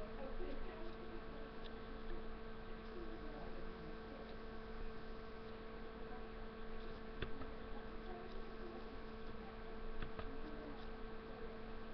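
Steady low electrical hum with a faint buzzing overtone, and a few faint clicks.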